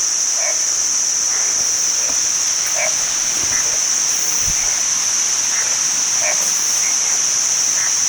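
Frogs croaking in short calls every second or two over a loud, steady, high-pitched drone of cicadas in tropical forest.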